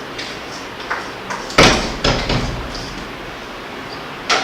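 Kitchen ingredient containers and spoons being handled on the counter: a few light clicks, a heavy thud about one and a half seconds in followed by another knock, and a sharp knock near the end.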